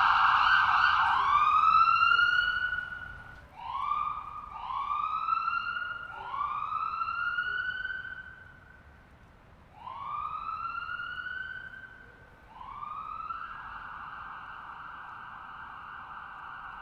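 A siren: a loud steady tone, then a string of rising whoops, each climbing in pitch over a second or so, before it settles back into a steady, quieter tone near the end.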